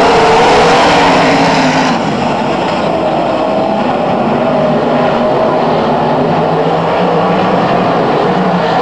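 Pack of winged sprint cars racing on a dirt oval, several engines at full throttle with their pitches wavering against each other. Loudest in the first two seconds as they pass close by, then a little quieter and steady as they run down the far side.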